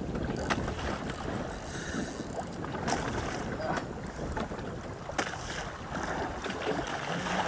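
Wind buffeting the microphone over water washing against the side of a small outrigger boat, with a few sharp knocks.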